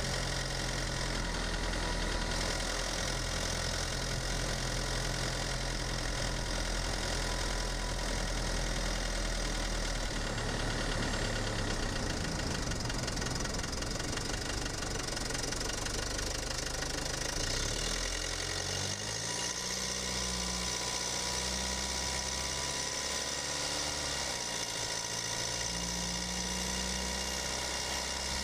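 Mercedes-Benz E250 BlueTec's OM651 four-cylinder twin-turbo diesel engine running while the car is driven slowly, picked up by a microphone in the engine bay. Its pitch shifts up and down several times in the second half as the engine speed changes.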